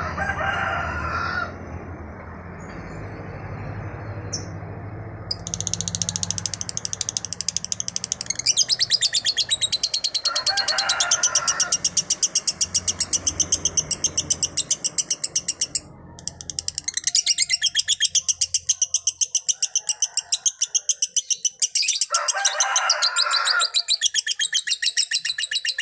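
Lovebird singing the 'konslet' style: a long, very fast, unbroken chatter of high repeated chirps that starts about five seconds in and breaks off briefly around sixteen seconds. A few shorter, lower calls come in between, and a low steady hum sits under the first half.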